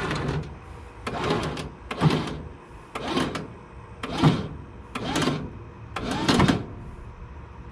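A hand ratcheting tool being worked to tighten something on the car, in repeated strokes about once a second; each stroke is a short rasping, squeaky burst.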